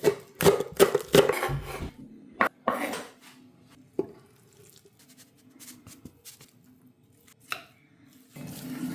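Kitchen dishes and utensils clattering: a quick run of knocks and clinks in the first three seconds, then single knocks at about four and seven and a half seconds. A steady low hum with a hiss starts near the end.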